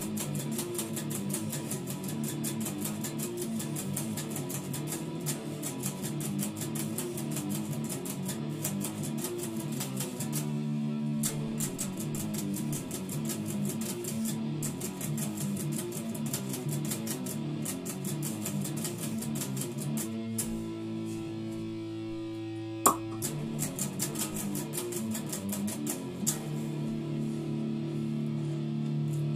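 Heavy metal riffing on an electric guitar through an amp: fast, even picking broken by held, ringing chords about ten seconds in, again past the twenty-second mark, and near the end. A single sharp click stands out just after one of the held chords.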